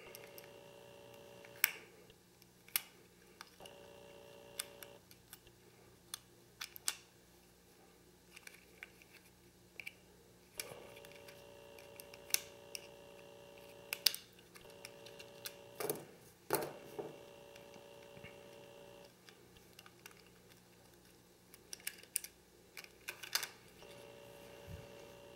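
Scattered small, sharp clicks and taps of a BlackBerry Pearl phone's plastic housing and internal parts being handled and taken apart by hand.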